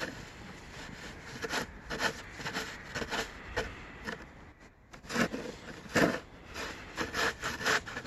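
Plastic snow shovel scraping and pushing through packed snow in a run of short strokes, the loudest a little past the middle.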